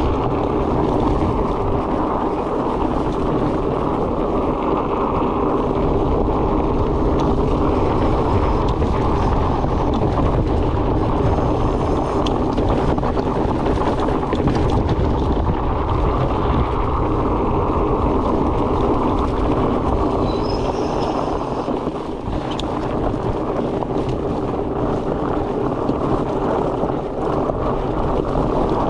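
Steady rushing noise of a fat bike being ridden: wind on the microphone mixed with the rumble of its wide tyres rolling over the trail, easing briefly about three-quarters of the way through.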